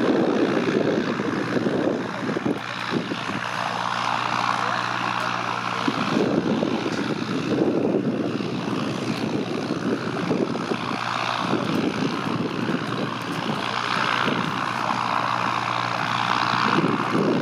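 Light propeller aircraft noise: the rushing, swelling whoosh of a small electric aeroplane's propeller passing overhead, with the low steady drone of piston-engined planes heard beneath it.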